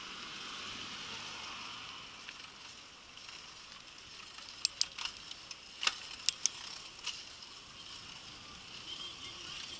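Bicycle rolling along a paved cycle path: a steady rushing noise of the ride, with a quick run of sharp, irregular clicks about halfway through.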